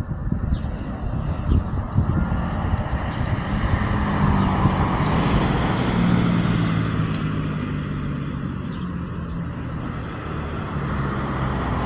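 A road vehicle passing by: engine hum and tyre noise swell to a peak and fade away, the hum dropping slightly in pitch as it goes past.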